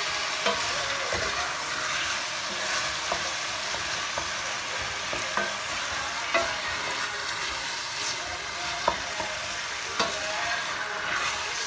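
Minced meat, tomato and pepper filling sizzling steadily as it fries in a stainless steel pot while a wooden spoon stirs it, with several sharp knocks of the spoon against the pot.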